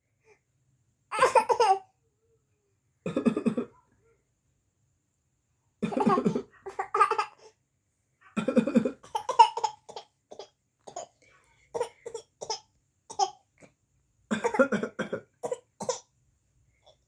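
A small child play-acting coughs, "uhu uhu", in imitation of her father's cough, with laughter between the coughs. The coughs come in separate short bursts, a few fuller ones early and a quicker run of short ones later.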